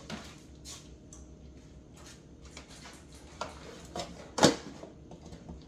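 Scattered light clicks and knocks of kitchen things being handled, with one sharper knock about four and a half seconds in.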